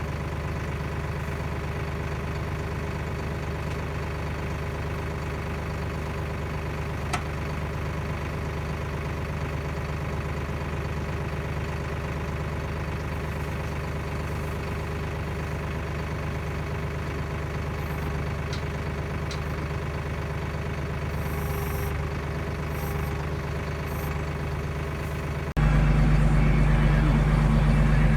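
Tractor engine idling steadily, then abruptly louder near the end.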